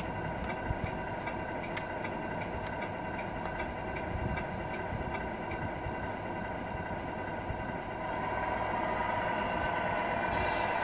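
RC truck's engine sound unit playing a simulated diesel idle through its small speaker, steady with faint ticks, growing louder about eight seconds in as the truck begins to move.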